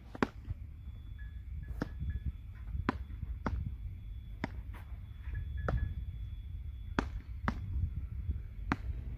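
Beach tennis rally: a ball struck back and forth between two solid beach tennis paddles, giving sharp single pocks about once a second, about nine hits in all.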